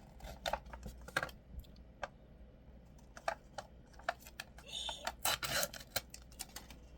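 Irregular small plastic clicks and taps from a slime kit's ice-cream slime container being opened, with a short crinkly rustle of packaging about five seconds in.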